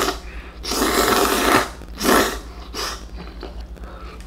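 A person slurping noodles with chopsticks: a long, noisy slurp of about a second, then a shorter one.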